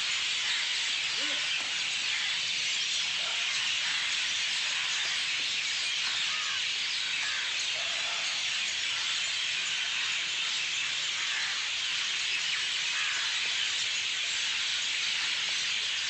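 A large flock of birds in the treetops calling all at once, the many chirps merging into a dense, unbroken, high-pitched chatter.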